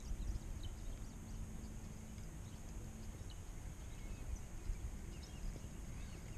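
Quiet farm-pond ambience: a low steady rumble with scattered faint, short, high bird chirps.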